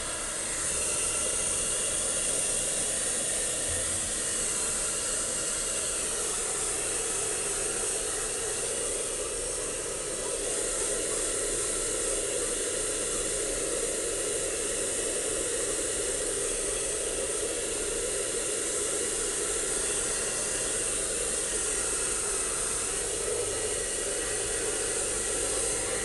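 Handheld hair dryer blowing steadily, a continuous hiss of rushing air aimed at a dog's damp fur, briefly a little softer about ten seconds in.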